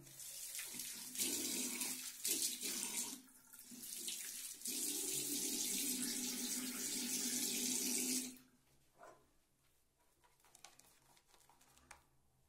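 Bathroom tap running into the sink basin, the water splashing steadily with a brief dip about three seconds in, then shut off suddenly about eight seconds in.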